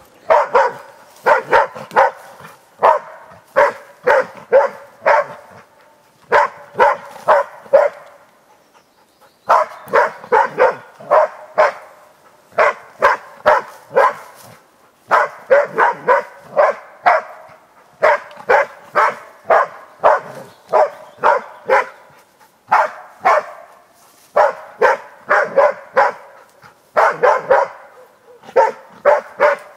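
East Siberian Laika barking steadily at a wild boar, the bay-barking of a hunting dog holding game. It gives rapid runs of sharp barks, about three a second, with a brief pause about eight seconds in.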